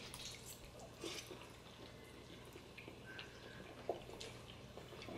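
Faint wet mouth sounds of two people eating shrimp alfredo pasta: quiet slurping of noodles and chewing, with small scattered smacks and clicks, one a little sharper near the end.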